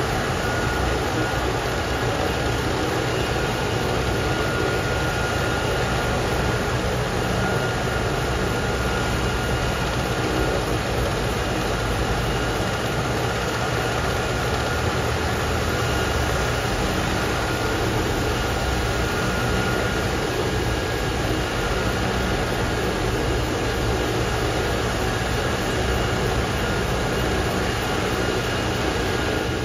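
Medical helicopter idling on the ground with its engines running and main rotor turning: a steady turbine whine over a continuous low rumble and rush.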